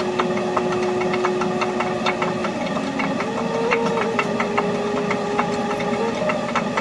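An engine running, its pitch dropping and then rising again partway through, with many short rattling clicks.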